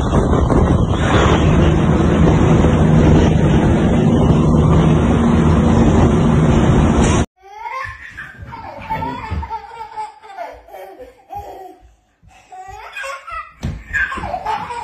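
Wind noise and a steady engine hum from a moving vehicle for about seven seconds, cut off abruptly. Then a small child laughs and squeals in short bursts.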